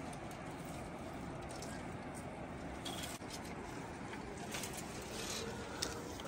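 Brief rustles and crackles of dry branches and grass as a bundle of firewood is carried along a footpath, over a steady low rumble.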